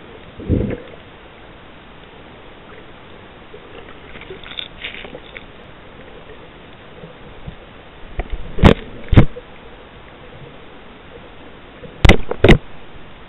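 Underwater hiss picked up by a camera held under water while snorkelling, with a dull thump about half a second in and two pairs of sharp loud knocks, each pair about half a second apart, near the middle and near the end.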